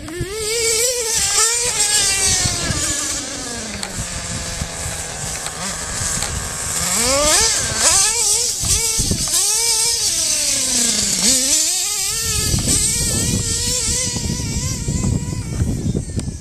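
Novarossi 28-7 .28 nitro engine of an Ofna Titan RC monster truck, revving up and down as the truck drives. Its pitch drops to a steady run after the first few seconds, then goes up in several quick blips about halfway through before settling again near the end.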